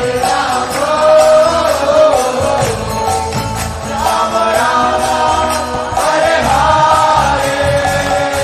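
Devotional kirtan: a group of voices singing a chant together, with jingling hand cymbals and a rhythmic drum beat.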